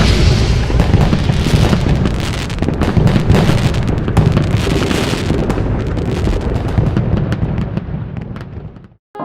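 Klasek 'King of Fireworks' firework barrage going off: a dense, rapid run of bangs and crackles over a deep rumble, thinning out and stopping near the end.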